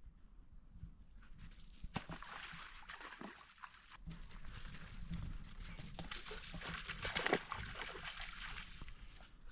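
Water splashing and sloshing irregularly, with scattered small clicks, growing louder about four seconds in.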